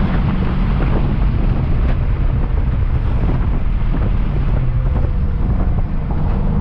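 Steady drone of the 2003 Infiniti M45's V8 and road noise while it is being driven, heavy in low rumble, with wind buffeting the microphone.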